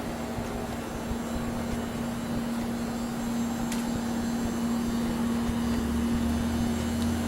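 American Standard central air conditioner's outdoor condensing unit running, a steady hum with fan noise that grows louder over the stretch.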